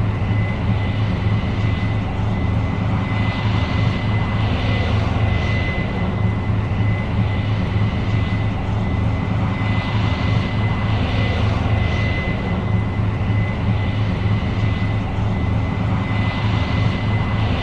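Case IH 8230 Axial-Flow combine running steadily while harvesting soybeans: a deep engine drone with a constant high-pitched whine over it, and a hiss that swells and fades every second or two.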